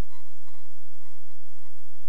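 Steady low hum and hiss with no distinct event: background noise in an empty tunnel.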